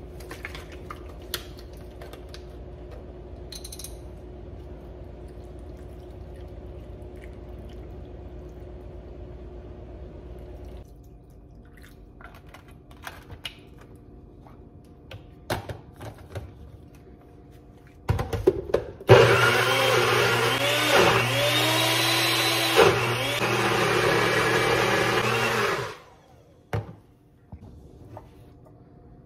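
A few knocks and clicks as the cup is handled, then a NutriBullet personal blender runs for about seven seconds, blending frozen fruit into a smoothie. Its motor pitch repeatedly sags and recovers as the blades chew through the load, and it stops abruptly.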